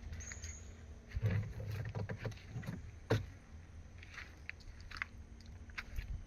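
Small ketinting longtail boat engine running with a low, steady rumble, with scattered knocks over it, the loudest about a second and three seconds in.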